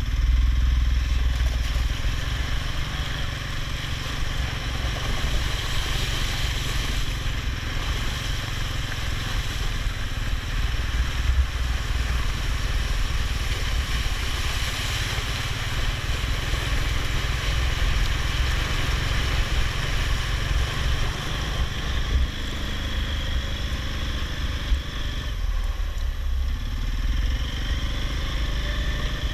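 ATV engine running during a ride, with a steady low rumble and a pitch that rises and falls as the throttle changes.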